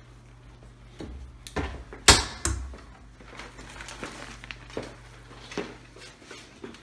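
Small hard parts clattering and a plastic parts bag rustling as they are handled, with a few sharp knocks about one and a half to two and a half seconds in, the loudest about two seconds in, then lighter clicks.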